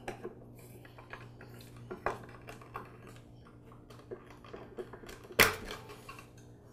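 Screwdriver working the screws of a plastic air-compressor pressure switch cover: light scattered clicks and scrapes of metal on plastic, with one louder clack about five seconds in as the cover is handled.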